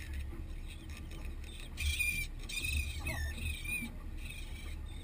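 Seabirds calling, several short squawks that bend in pitch from about two to four seconds in, over a steady low wind rumble.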